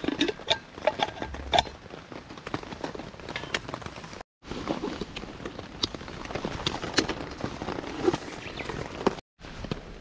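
Close handling of camp gear: scattered light clicks and metal clinks as the lid is worked off a small metal kettle, then rustling and plastic clicks as a canteen bottle is unbuckled and pulled from its cloth pouch. The sound breaks off twice, briefly.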